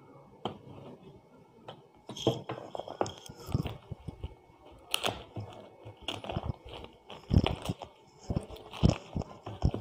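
Handling of a cardboard box in a plastic wrapper: irregular crinkles, crunches and taps, starting about two seconds in and growing louder toward the end.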